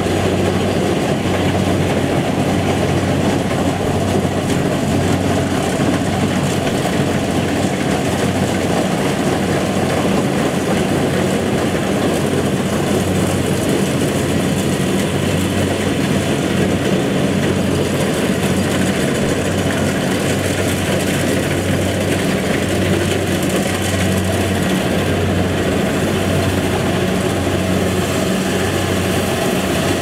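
Kubota combine harvester running steadily, its diesel engine hum under the clatter of the cutting and threshing machinery.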